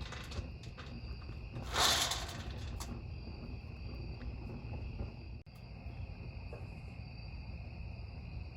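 Crickets chirring steadily alongside a wood fire crackling in a stainless steel fire pit, with scattered pops and one louder burst of crackle about two seconds in.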